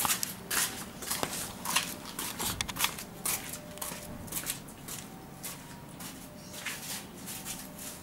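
Handling noise: fabric rustling and scraping against the microphone as the camera is moved about. It comes as a run of short, irregular scrapes and clicks, busiest in the first three seconds and sparser after.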